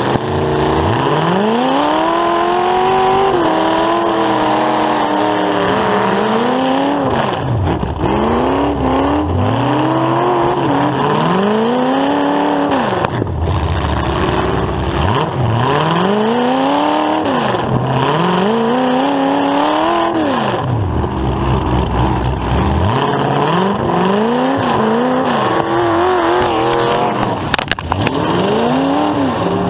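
Full-size demolition derby car's engine, heard from inside the car, revving up and dropping back over and over, its pitch rising and falling every two to four seconds.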